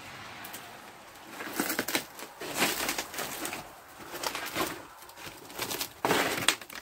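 Footsteps crunching over debris, a run of irregular crackling steps that grows louder near the end.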